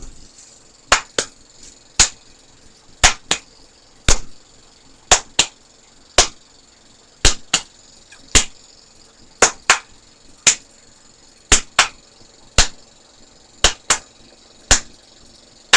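A home-made percussion beat of sharp clicks in a steady repeating pattern, about one a second, with a quick double click on every other beat.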